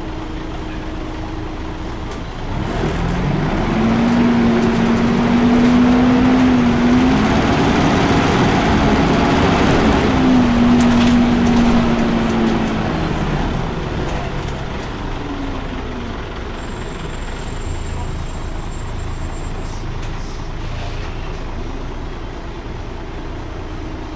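Volvo B10BLE bus's engine cooling fan running with a steady hum, swelling much louder for about ten seconds in the middle as a whine rises, holds and then falls away.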